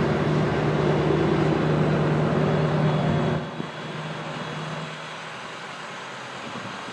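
A motor vehicle's engine running at a steady pitch, which drops away sharply about three and a half seconds in, leaving a quieter street hum.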